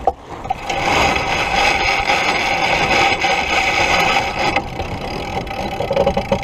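Sheet winch on a racing sailboat spinning with a fast, steady ratcheting buzz as the jib sheet is hauled in during a tack. It starts about a second in and stops shortly after the middle.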